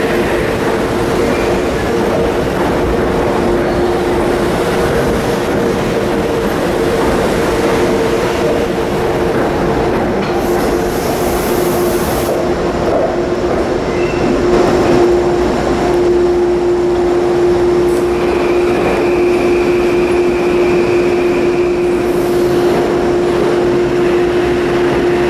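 A train running past at close range: a loud, steady rumble of wheels on rail with a steady hum underneath, and a thin high squeal for a few seconds past the middle.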